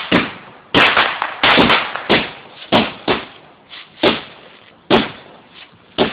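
Fireworks exploding: an uneven series of sharp bangs, about two a second, each trailing off in a short echo.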